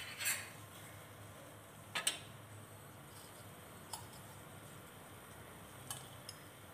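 A few faint, scattered clicks and clinks of kitchen utensils over a low steady hum, with a quick double click about two seconds in.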